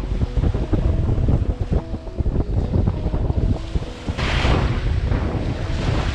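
Wind buffeting the microphone over waves washing up the beach, with one louder wave rushing in about four seconds in.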